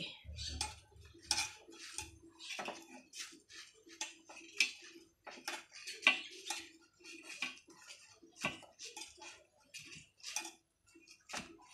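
Steel tongs clicking and tapping against a gas stove's burner grate as a rice roti is held and turned over the open flame: irregular light metallic clicks, two or three a second.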